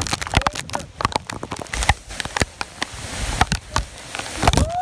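Hurricane-force eyewall wind gusting with heavy rain. Dense, irregular crackling and pattering comes from the wind and rain hitting the microphone.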